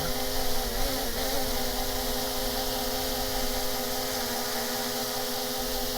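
DJI Mini 3 Pro drone hovering close in with the steady buzzing whine of its propellers, the pitch wobbling briefly about a second in as the motors adjust, while it is brought down to land.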